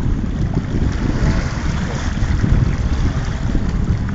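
Wind buffeting the microphone in a loud, rough low rumble, with choppy lake water washing.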